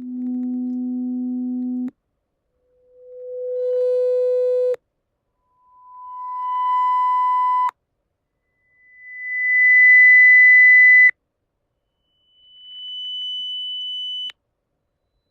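Test tones of an online loudest-discomfort-level hearing test: five steady pure tones in turn, each higher in pitch than the last, each swelling in loudness over about a second, holding, then cutting off sharply, with a short silence between them. Each tone tests one frequency, checking at what loudness it becomes uncomfortable.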